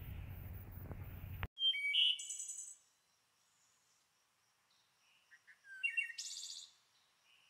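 Outdoor background noise with a low rumble cuts off suddenly about one and a half seconds in. Two short bursts of high bird chirps follow, one just after the cut and one near the end, with a few faint chirps between.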